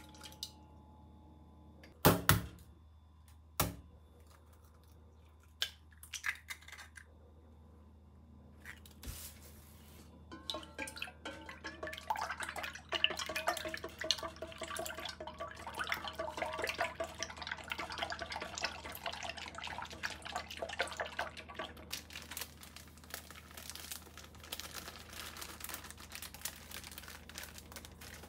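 Milk poured into a stainless steel mixing bowl, then two sharp knocks. After that come about ten seconds of rapid clinking and scraping as chopsticks beat egg and milk against the steel bowl, easing to lighter clatter near the end.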